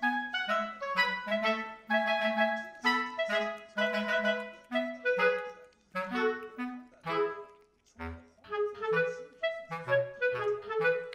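Background music: a light tune of short, detached notes in a steady rhythm over a lower bass line.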